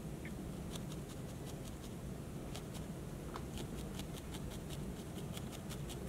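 Barbed felting needle stabbing over and over through wool roving into a foam pad, poking a piece of wool into place: a quick, uneven run of light clicks, several a second.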